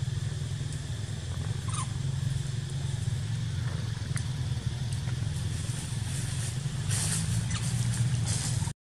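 A steady low rumble, with faint scattered ticks and a brief rise of hissing rustle near the end.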